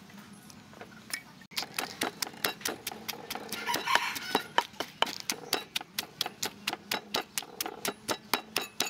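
Wooden pestle pounding ingredients in a clay mortar: a steady beat of about four knocks a second, starting about a second and a half in.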